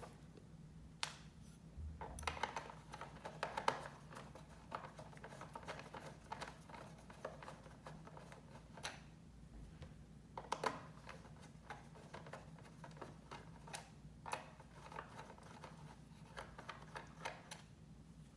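Faint small clicks and scratchy scrapes of a hand screwdriver turning screws into a laptop's plastic bottom panel, in irregular clusters with pauses between.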